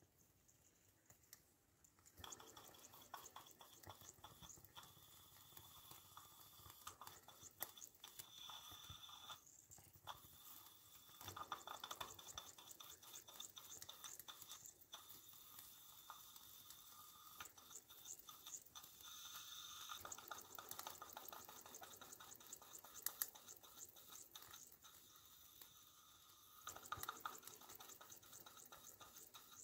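Faint, irregular crackling and sizzling from a small hand-built model steam engine's boiler and firebox while it is being fired, with a thin high hiss coming and going.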